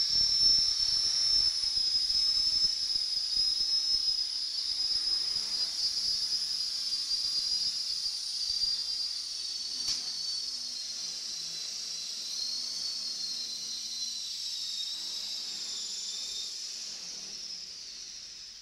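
Small T-Rex RC helicopter's motor and rotor: a high-pitched whine that sinks slowly in pitch and fades as the helicopter spools down on the floor, dying away near the end.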